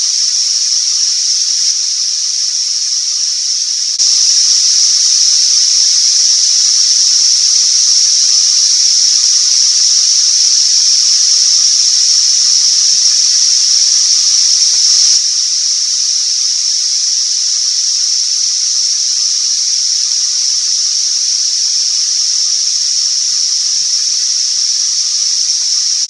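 A chorus of double drummer cicadas calling: a loud, steady, shrill buzz with no breaks. It gets louder about four seconds in and drops back about fifteen seconds in.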